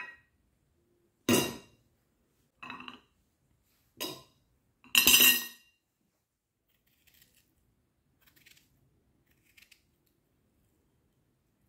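Glass dessert bowl, metal spoon and china plate clinking together as the dish is handled and set down. There are four sharp ringing clinks about a second apart, the last the loudest, then a few faint taps.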